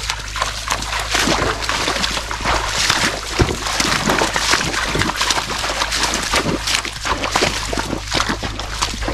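Hooves of horses wading through shallow muddy water, making continuous irregular splashing and sloshing.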